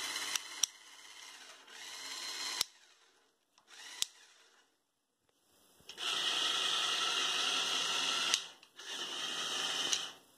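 Small electric LEGO motor whirring as it spins the propeller of a LEGO boat's outboard-style drive. It runs in several stretches that start and stop abruptly, with a near-silent gap in the middle; the loudest run is about six to eight seconds in.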